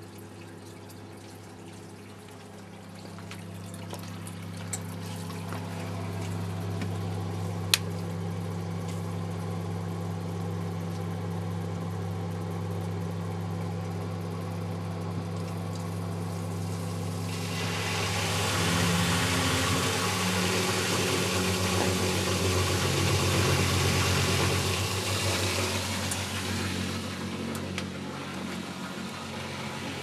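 Philips SL 202 front-loading washing machine draining between rinses. A steady pump hum builds up over the first few seconds. About 17 seconds in, a loud rush and gurgle of water joins it for several seconds, then eases off.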